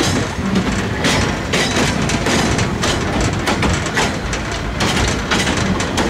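Narrow-gauge forest railway train running: a steady loud rumble broken by sharp noisy bursts about twice a second.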